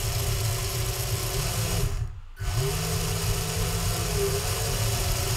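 Small DC gearmotors of a Raspberry Pi Pico W rover spinning its wheels, a steady geared whir. They stop for a moment about two seconds in, then spin up again as the joystick is moved.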